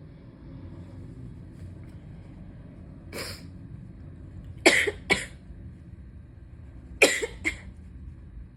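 A person with a feverish, congested cold coughing: a weaker burst about three seconds in, then two harsh coughs, each followed quickly by one or two smaller ones.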